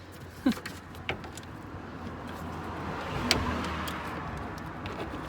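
Mercedes SLK R170 alternator being wrestled out of a tight engine bay past the A/C compressor: a few sharp metal knocks and a scraping, rubbing sound that grows louder over the last few seconds.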